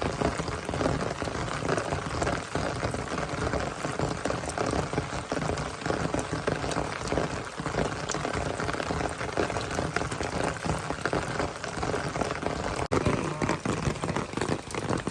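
Steady rain falling, a dense, continuous hiss of many individual drops hitting close by.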